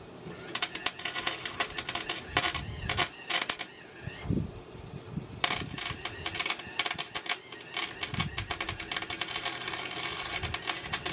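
Rapid, irregular clicking and tapping, with a short lull a little before the middle, then denser clicking again.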